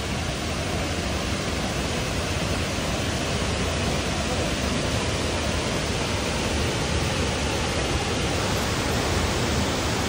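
Steady rushing of a waterfall, a full, even roar of falling water running high with the post-monsoon flow.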